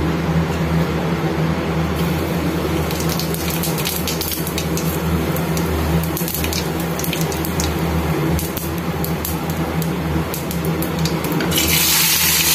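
Hot oil crackling and spitting in an aluminium kadhai over a low steady hum, then a loud sizzle near the end as chopped onions and green chillies are tipped into the oil.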